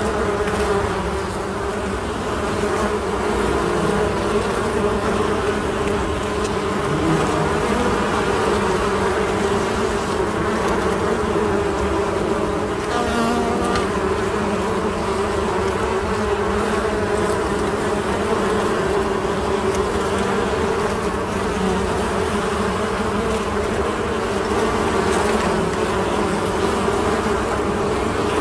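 Many bees buzzing together: a steady hum of wings at several pitches at once, with no pauses.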